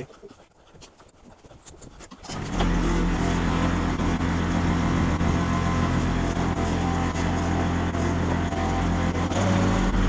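A few faint knocks, then about two seconds in a compact tractor's engine comes up loud and runs steadily at an even pitch.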